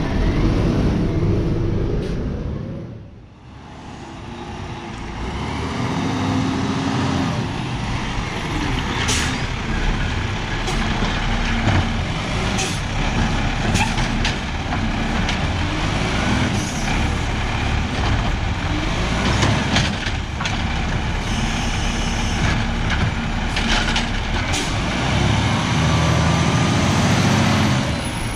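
Peterbilt 520 garbage truck with a McNeilus AutoReach side-loader body, its diesel running as it drives along the curb and stops, with several short air-brake hisses. The sound drops away briefly about three seconds in, then the truck's engine builds back up.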